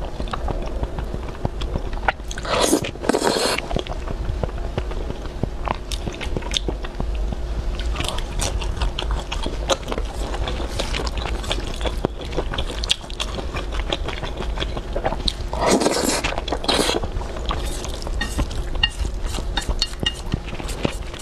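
Close-miked eating sounds of black bean sauce noodles (zhajiangmian): two loud slurps, about three seconds in and again about sixteen seconds in, with wet chewing between them. Small clicks and scrapes of chopsticks against the metal bowl.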